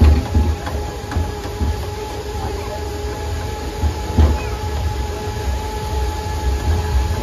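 Boardwalk tram car rolling along wooden boardwalk planks: a bumpy low rumble with uneven knocks as the wheels cross the boards, and a steady drone from the tram underneath.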